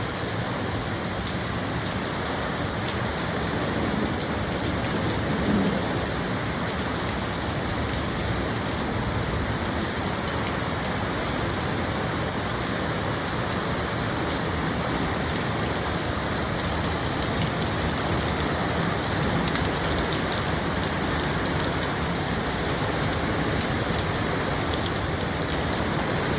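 Rain falling steadily, an even hiss of many drops.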